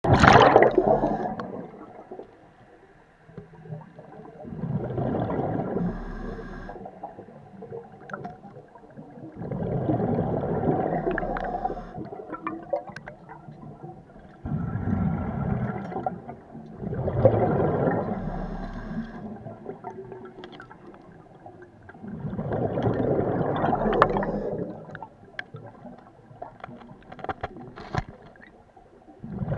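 Scuba diver breathing through a regulator underwater: loud bubbly exhales in regular bursts about every five seconds, with quieter inhales between.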